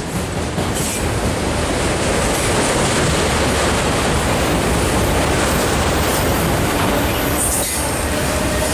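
Auto rack freight cars rolling past slowly, a steady loud rumble of steel wheels on rails, with a faint wheel squeal late on.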